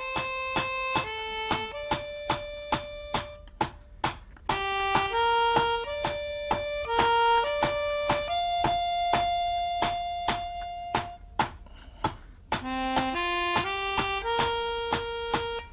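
Background music, a melody of held notes, over a steady run of hand-hammer blows on a sheet-iron livestock bell being forged on an anvil, about two to three sharp metallic strikes a second.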